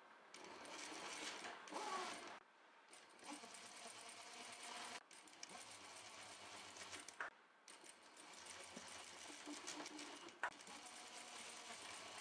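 Juki industrial sewing machine stitching fabric in four runs of a few seconds each, with brief stops between as the fabric is repositioned. A sharp click about ten seconds in.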